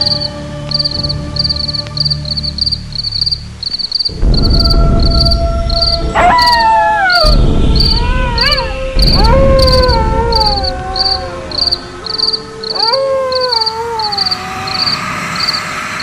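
Horror sound-effects bed: crickets chirping steadily, about two chirps a second, over a low droning note. About four seconds in a deep rumble comes in, and from about six seconds four long eerie howls rise sharply and then slowly fall away.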